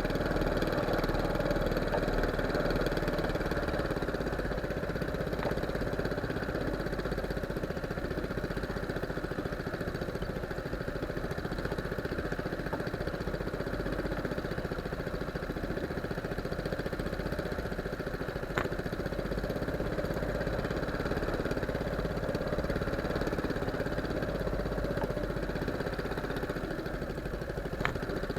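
Small fishing boat's engine running steadily at low revs, with two brief sharp clicks, one about two-thirds of the way in and one near the end.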